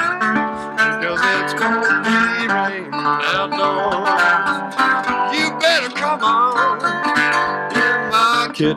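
Acoustic guitar played with a bottleneck slide in Delta blues style, an instrumental passage of plucked notes with slides gliding up and down in pitch.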